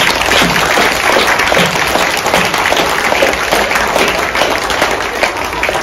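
An audience clapping loudly all together on cue, a dense clatter that starts abruptly and stops near the end, made on purpose to drown out a voice that is barely audible beneath it.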